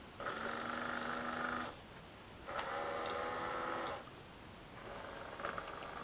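Electronic animal sound effect from a Wesco Chicken Run alarm clock's small speaker, in the voice of the toy's guard dog. It gives two drawn-out, buzzy snore-like sounds about a second and a half each, with a short pause between, then a few faint clicks near the end.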